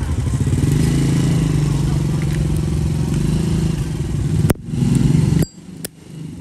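Motorcycle engine running close by, a steady low hum that stops abruptly about five and a half seconds in. Sharp metallic clicks about four and a half seconds in, then twice more near the end: a Zippo lighter's lid being worked.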